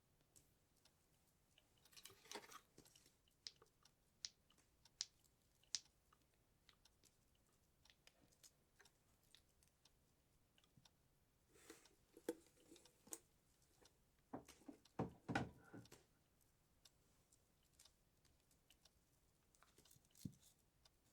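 Quiet handling of wooden nutcracker figurines: scattered light clicks and taps, with short bursts of rustling about two seconds in and again from about twelve seconds, and a couple of duller knocks around fifteen seconds as a figure is set down.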